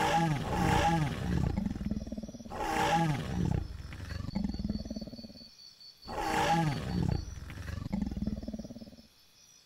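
Dinosaur roar sound effects dubbed over a toy T-Rex fight: three long, growling roars, the first two running almost together and the third starting after a short break about six seconds in.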